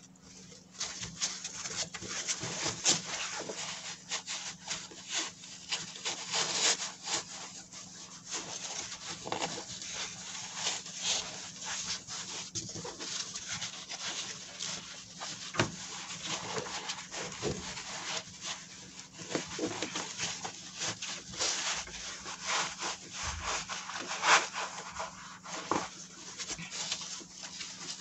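Foam pad and fabric cover rustling and rubbing as the foam is worked into a striped fabric cat-bed cover by hand, irregular, with a few sharper knocks.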